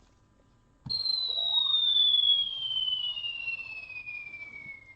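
Whistling sound effect that starts suddenly about a second in: two pure tones glide against each other, one falling slowly from high to mid pitch while the other rises steeply, the two crossing partway through.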